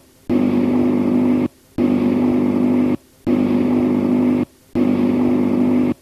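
Interference signal on an old tape recording: a steady buzzing hum with hiss, in blocks about a second and a quarter long broken by short silences, repeating every second and a half.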